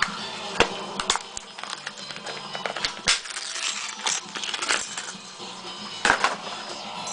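Small metal clicks and clinks of lock picks and a brass padlock being handled, scattered irregularly, with faint music behind.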